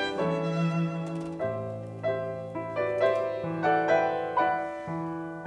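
Classical chamber music: piano playing a slow line of notes over long held low string notes.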